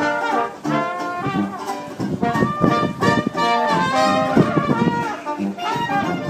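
A small brass band, a sousaphone among the horns, playing a tune: several horn lines moving over a low bass part.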